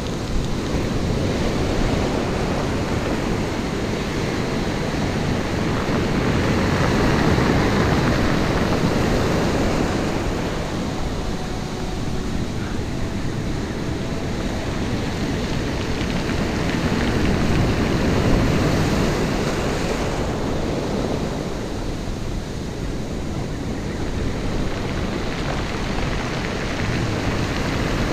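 Ocean surf washing over a rocky shore, a steady rushing that swells and eases roughly every ten seconds as waves break and run up the beach, with wind buffeting the microphone.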